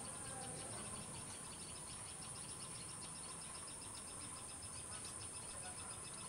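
Faint outdoor wildlife ambience of insects and birds: a fast, even run of high chirps, several a second, over a steady high-pitched buzz.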